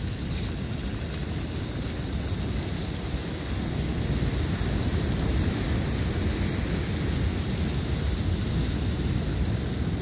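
Wind buffeting the microphone over river water rushing through a breach in a beach sand bar, a steady low rumble that grows a little louder about four seconds in.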